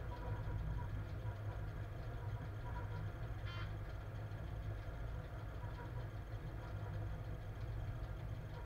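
Steady low rumble inside the cab of a class 130 electric locomotive hauling a heavy freight train, from running gear and onboard equipment. A brief high squeak cuts through about three and a half seconds in.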